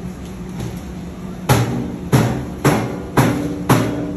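Background music comes in about a second and a half in: a heavy drum beat with bass notes, about two hits a second. Before it there is only a low steady hum.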